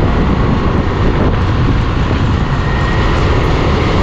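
Steady rush of wind on the microphone over a motorcycle running at an easy cruising speed, with tyres on a wet road.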